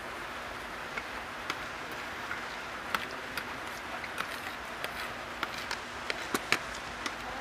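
A person eating from a plate: scattered short, sharp clicks and ticks that come more often toward the end, over a steady hiss.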